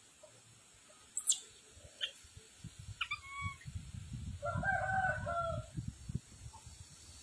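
A rooster crows once, starting about four and a half seconds in and lasting just over a second. A brief sharp chirp comes about a second in, and low rumbling thumps run underneath the second half.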